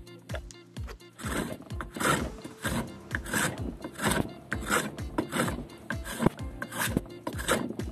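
Steel chisel shaving a softwood block by hand, a scraping stroke about every two-thirds of a second, with background music underneath.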